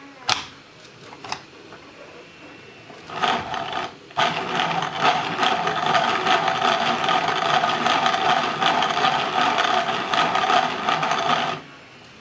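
3D-printed plastic planetary gear train of an Allison 1000 transmission model, hand-cranked in reverse: meshing plastic gears give a steady whirring rattle for about eight seconds, with a brief break near the start, then stop sharply. Two short clicks come first as a plastic clutch lever is pushed.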